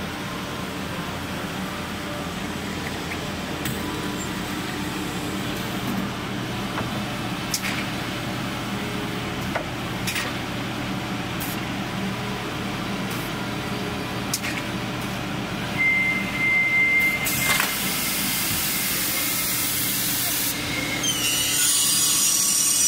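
SOSN SK1328A four-side edge cutting saw running with a steady hum as it feeds a door panel. About seventeen seconds in a loud hiss starts, and near the end the machine grows louder with a high whine.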